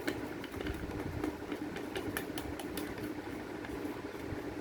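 Spoon stirring a sticky glue and lotion mixture in a bowl, giving scattered light clicks, over a steady low hum.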